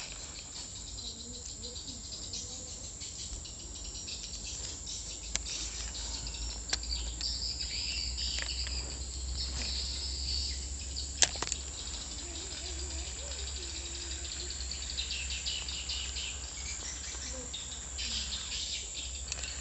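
Steady high-pitched insect chorus from the riverside vegetation, with a few isolated sharp clicks.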